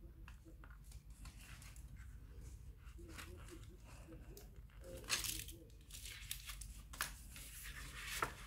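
Thin perforated plastic air-conditioner deflector sheet crinkling and rustling as it is handled, with small plastic clicks as a clip is worked onto its edge; the sharpest clicks come about five, seven and eight seconds in.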